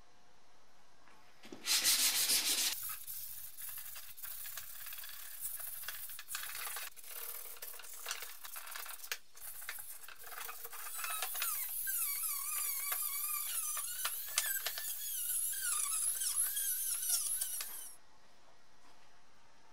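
Scratchy rubbing on a metal pipe worked by hand, with many small clicks and a short loud burst about two seconds in. In the second half it turns into a warbling squeak.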